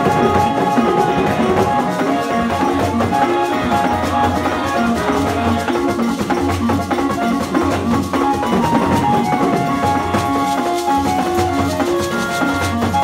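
Lively church praise music: drums and rattling percussion keep a steady beat under pitched melody notes.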